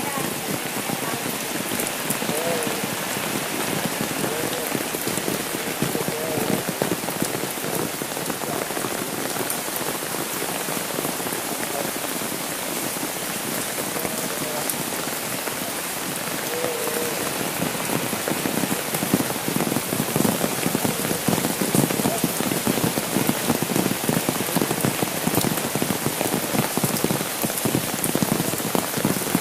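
Steady rain falling on a wet road, with close drops tapping on an umbrella overhead. The rain grows louder and denser about halfway through.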